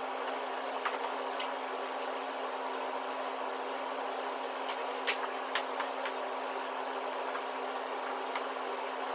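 Steady hum and hiss of room noise, with a few light taps and knocks as pointe shoes are handled and put on, most of them around the middle.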